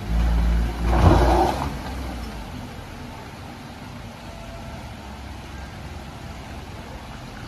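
Hatchback car's engine revved hard twice in the first second and a half as the car strains up a loose, muddy, rocky slope, then dropping to a low steady running sound as it creeps on.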